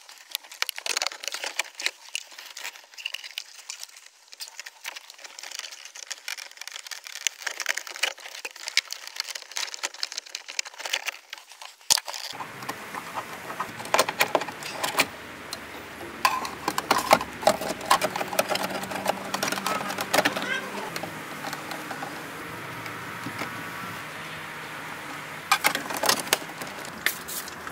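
Clicks, knocks and rattles of a BMW E30 instrument cluster and its wiring being handled and fitted into the dashboard, with screwdriver work on the fittings. A steady low hum comes in about halfway.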